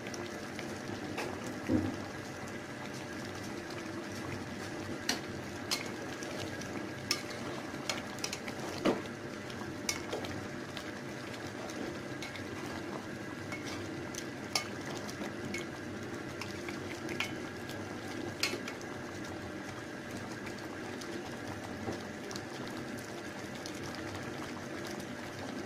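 Meat curry simmering and sizzling steadily in a pot, with scattered clicks and knocks of a spatula stirring it against the pot's sides.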